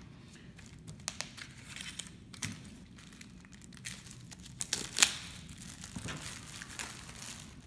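Clear plastic wrapping crinkling and tearing as it is pulled off a pack of motorcycle battery acid, with irregular crackles and one sharper crackle about five seconds in.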